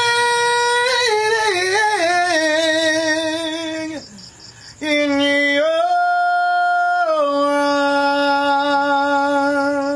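A man singing the closing lines of a ballad in a single unaccompanied voice: a long held note that wavers through a short run, a brief break, then a higher note that slides up and is held long to the end.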